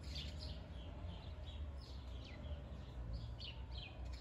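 Songbirds chirping: a quick run of short, falling chirps, several a second, over a faint low rumble.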